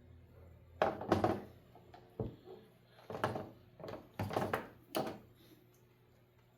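A run of knocks and rustles from objects being picked up, handled and set down on a workbench, about half a dozen over four seconds, over a faint steady hum.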